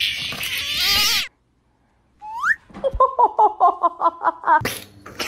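A dog, seemingly a young puppy, giving a rapid run of short high-pitched whining yips, about six a second for a second and a half. It follows a brief noisy burst with a rising cry.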